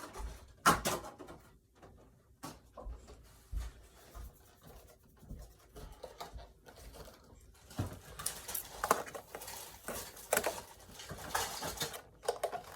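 Handling noises: scattered rustles, light clicks and taps, growing busier and louder in the second half.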